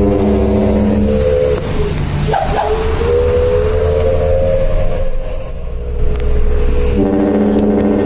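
Dump truck's multi-trumpet air horn sounding in three long blasts, each a chord of several pitched tones, over the steady low rumble of the truck's engine.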